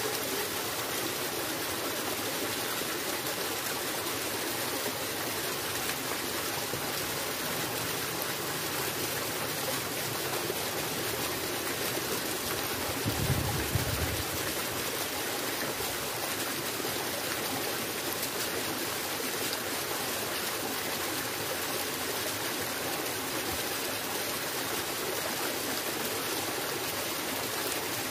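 Steady rush of running water, an even hiss without pauses, with a brief low bump about 13 seconds in.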